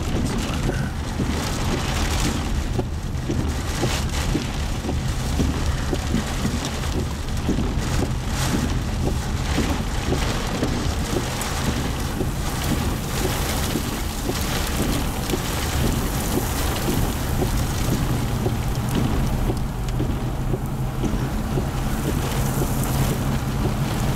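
Wind and rain hitting a vehicle, heard from inside the cabin over a steady low rumble of the vehicle, with a few brief gusts.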